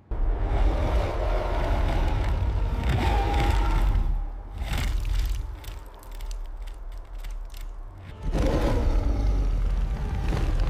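Cinematic sound design: a deep booming rumble that cuts in suddenly, with a burst of sharp crackling impacts about five seconds in. The rumble swells again near the end.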